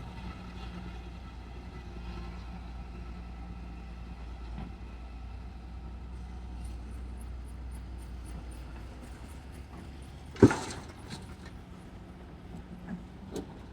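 Heavy diesel machinery engine running steadily at a low hum, with one sharp loud bang about ten seconds in and a few lighter knocks after it.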